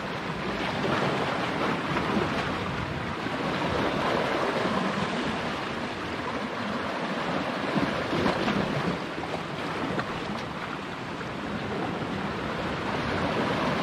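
Sea surf washing against shoreline rocks: a steady rushing that swells and eases, with wind buffeting the microphone.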